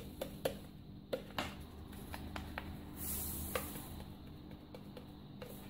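Dry baker's yeast being sprinkled by hand from sachets into a food processor bowl: faint scattered ticks and light rustling over a low steady hum.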